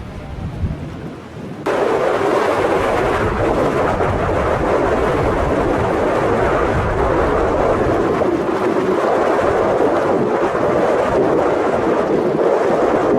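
Wind buffeting the microphone with a low rumble, then, suddenly, under two seconds in, the loud steady roar of a passenger jet's engines, holding at full level.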